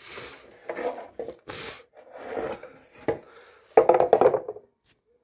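Wooden slatted door frame being shifted over another wooden panel: wood scraping and rubbing on wood in several short bursts, with a sharp knock about three seconds in and the loudest scrape just after it.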